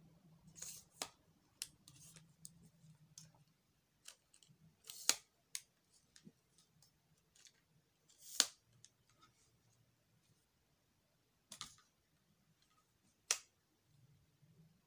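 Plastic and metal clicks and taps of a small aluminium tripod being handled, its legs folded together and its plastic leg clips snapping, with several louder snaps spread between lighter taps.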